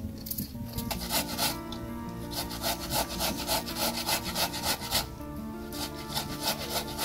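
A vegetable rubbed quickly up and down a metal box grater, in rapid rasping strokes about five a second. The strokes pause briefly at about five seconds and resume near the end, over quiet background music.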